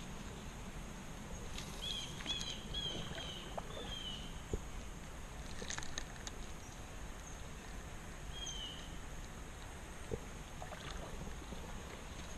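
Steady low rush of creek water, with a small bird chirping a few times about two seconds in and once more near the middle, and a few light clicks.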